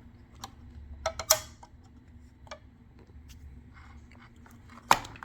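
Scattered hard clicks and taps of a makeshift tool and small parts as a trigger cable end is worked into the trigger assembly. A loud knock comes about a second in and another near the end.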